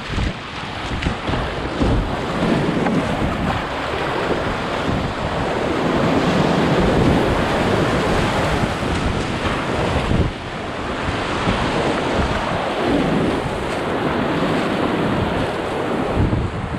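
Whitewater rapids rushing and splashing around a kayak, close to the microphone, with wind buffeting the mic.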